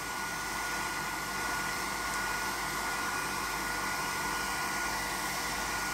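Handheld electric hair dryer running steadily, blowing on a wet dog's coat: an even rush of air with a steady high whine through it.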